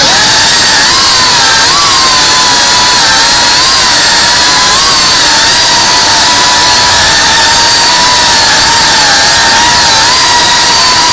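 FPV quadcopter's electric motors and propellers giving a loud, steady high-pitched whine over a rushing hiss. The pitch dips and rises slightly as the throttle changes.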